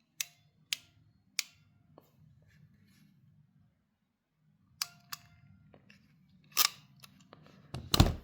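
Ratcheting crimping tool clicking as its handles are squeezed shut on an open-barrel wire terminal: separate sharp clicks, a few in the first two seconds, more after a pause, and the loudest near the end.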